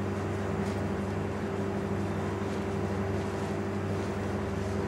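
Steady low machine hum with an even buzz, and a few faint rustles of cloth as a shirt cuff is buttoned.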